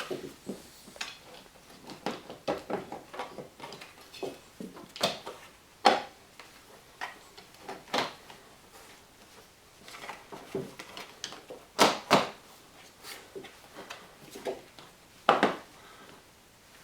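Irregular clicks and knocks of hand-handling a windshield wiper arm on a 2005 Toyota Matrix as it is lifted and repositioned on its pivot shaft. The sharpest knocks come about 6, 8, 12 and 15 seconds in.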